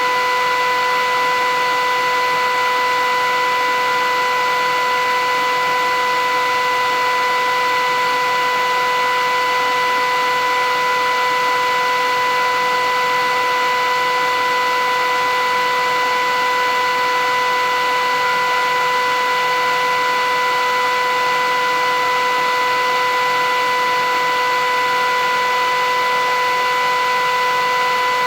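Philips 8000 Series vacuum cleaner running steadily: a constant rush of air with an even motor whine over it.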